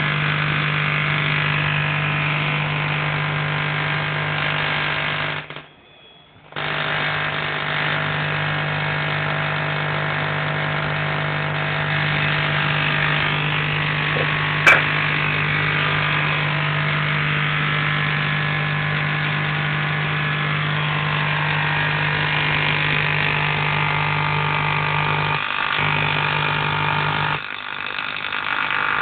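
Small Tesla coil running, its spark discharge giving a loud, steady buzz. It cuts out for about a second about six seconds in and dips briefly near the end, with one sharp crack about halfway.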